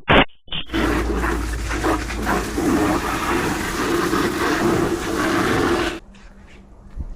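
Bosch high-pressure washer spraying: a motor hum under a loud, steady hiss of water jetting, running for about five seconds and cutting off abruptly when the trigger is released. A few short clicks come just before it starts.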